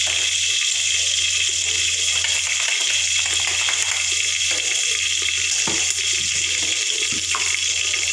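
Hot oil sizzling steadily around mustard and cumin seeds frying in a pot, the tempering for a sambar, with a few faint pops.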